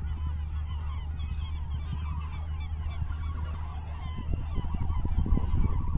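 A large flock of gulls calling continuously, many short overlapping cries, over a steady low rumble. Irregular low thumps join in from about four seconds in.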